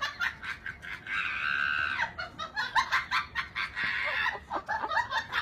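A run of short light taps, with an animal giving two drawn-out high calls, the first about a second in and a shorter one near the four-second mark.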